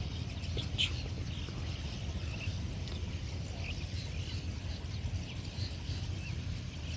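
Small birds chirping and calling here and there, with one sharper call about a second in, over a steady low rumble.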